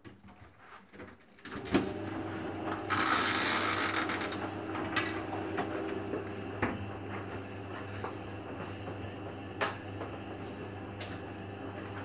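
Beko WMA 1510 washing machine in its wash cycle: after a short pause, a click and the drum motor starts again with a steady hum, turning the sudsy wet load with sloshing and occasional small clicks. A loud hiss comes about three seconds in and lasts about a second.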